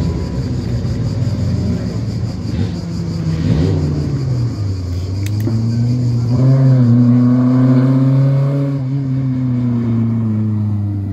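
Car engine running and accelerating. Its note wavers in pitch, rises about six seconds in and holds high for a few seconds, then eases off.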